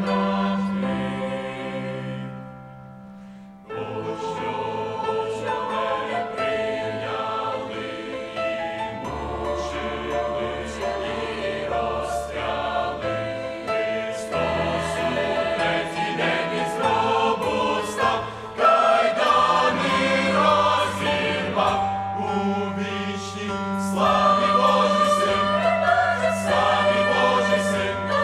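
Mixed youth choir of men and women singing a hymn in Ukrainian, in full harmony. About two seconds in the voices drop to a soft held chord, then come back at full strength a second and a half later.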